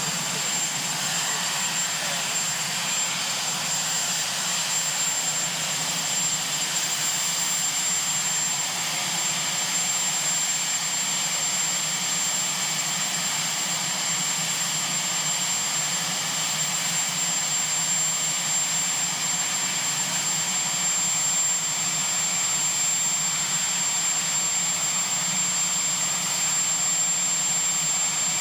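Sikorsky VH-3D Sea King (Marine One) turbine helicopter running on the ground: a steady turbine whine with a high whistle over a low hum.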